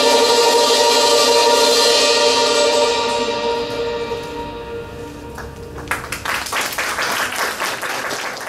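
Final chord of a Thai khim ensemble, struck hammered dulcimers, ringing on and fading away over the first few seconds. Clapping follows from about six seconds in.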